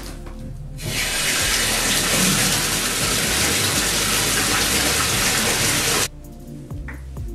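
Bathtub tap running hard, water pouring into the tub in a steady rush. It starts about a second in and cuts off abruptly about a second before the end.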